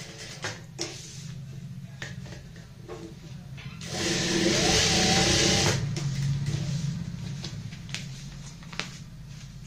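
Electric sewing machine stitching a fabric handle onto a quilted cloth bag panel. The motor hums throughout, broken by a few short stitching bursts and clicks. About four seconds in it runs fast and loud for roughly two seconds, its pitch rising and then holding, before dropping back to the hum.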